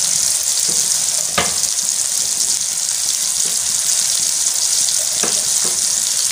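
Onions, tomatoes and green chillies sizzling steadily in hot ghee in a karahi as raw chicken pieces go in, with a few sharp spattering cracks, the loudest about a second and a half in.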